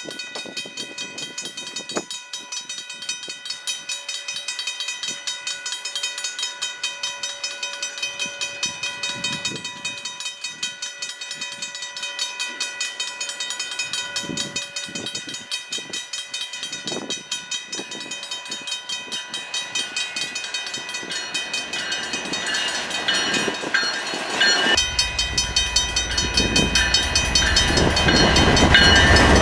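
Grade-crossing warning bell ringing steadily at about two strokes a second as a CN freight train approaches; the diesel locomotives' rumble builds over the last several seconds and becomes the loudest sound near the end.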